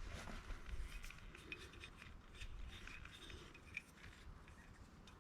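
Faint scattered light clicks and rubbing from handling a Subaru Brumby outer door handle and its retaining clip.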